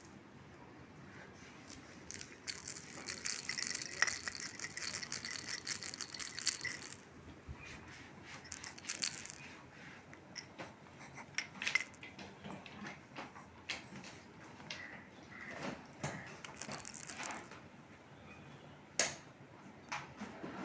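A rattle shaken in bursts: one long shake of about four seconds, then two short shakes, with scattered light knocks and clicks between them.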